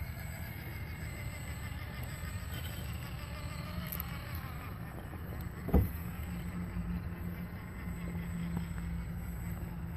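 Electric motor and gear drivetrain of a Traxxas TRX-4 RC rock crawler with a 55-turn brushed motor, whining faintly as it crawls over rocks, the pitch rising and falling with the throttle. A single sharp thump about six seconds in, over a steady low rumble.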